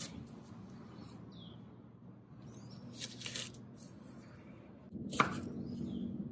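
Kitchen knife cutting through torch ginger stalks on a bamboo cutting board: a few crunchy cuts, each ending in a knock of the blade on the board. There is one at the start, a cluster around three seconds, and the loudest, with a short ring, about five seconds in.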